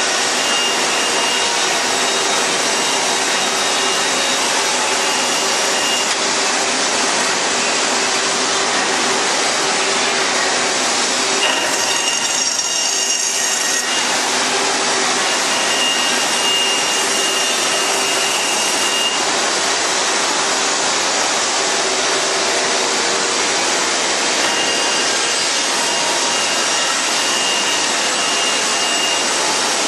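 CNC band saw running and cutting through a stack of wooden boards along a curved line: a steady, loud machine whirr, with a thin high whine that comes and goes and a harsher stretch about twelve seconds in.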